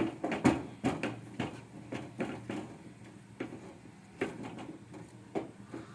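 A spoon stirring and mashing thick ugali in a pot, knocking and scraping against the pot in uneven strokes, about two a second, as the stiff maize porridge thickens.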